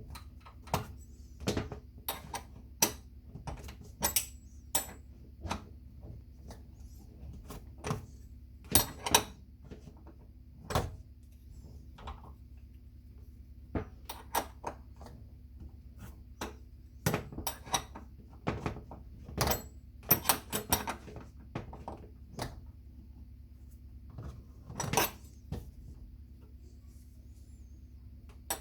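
Irregular sharp clicks, clinks and knocks of hand work with a metal tool and hard parts, some in quick clusters, over a low steady hum.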